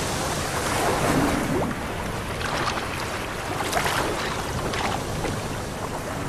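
Choppy sea water washing and splashing, with a few brief sharper splashes around the middle as seabirds plunge into the water to fish.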